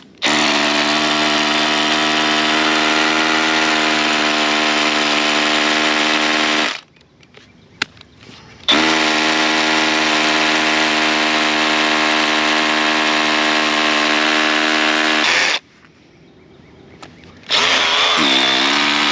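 Milwaukee M12 cordless drill boring into a concrete footing for an anchor, running at steady full speed in three long runs: about six seconds, about seven seconds, then a short run near the end.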